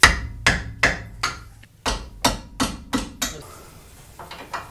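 About ten sharp hammer blows in quick succession over roughly three seconds, then a few fainter taps near the end.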